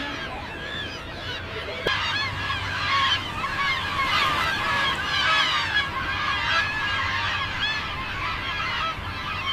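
A flock of birds calling: many short, overlapping calls that grow busier about two seconds in, over a low steady background rumble.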